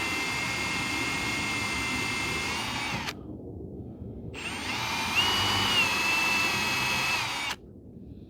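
Power drill boring a 5/8-inch hole through wood, running in two bursts. A steady whine stops about three seconds in, then starts again about a second later and runs until near the end, its pitch stepping up shortly after it restarts.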